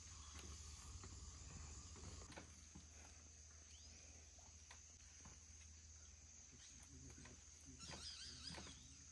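Quiet rainforest ambience: a faint, steady, high-pitched insect drone, with soft footsteps on wooden steps and decking.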